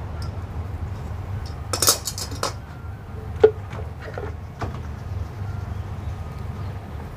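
Metal spatula and spoon clinking and scraping against a flat tava griddle and a jar while parathas are turned and buttered: a cluster of quick clicks and scrapes about two seconds in, then one sharp ringing clink, the loudest, about halfway, and a few softer clicks after it. A steady low hum runs underneath.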